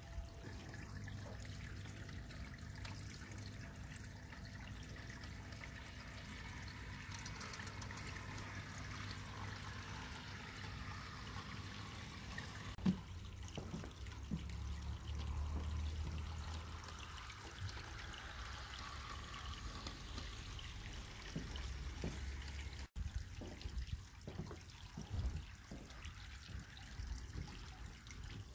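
G scale electric model train running on outdoor brass track: a steady low hum with a faint whine that swells and fades twice, and a few sharp clicks.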